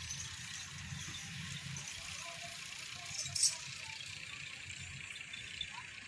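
Quiet outdoor background with a steady high hiss and a low rumble, and one brief rustling clatter about three and a half seconds in.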